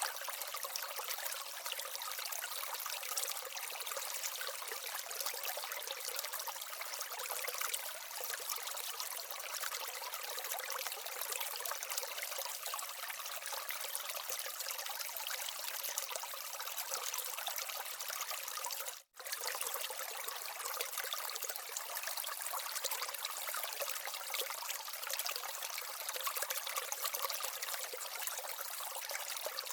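Small waterfall and stream in an aquaterrarium, water trickling and splashing steadily; the sound drops out for an instant about nineteen seconds in.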